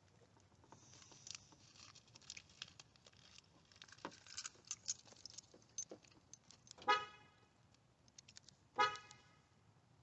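Light clicking and handling of parts, then two short car horn toots about two seconds apart.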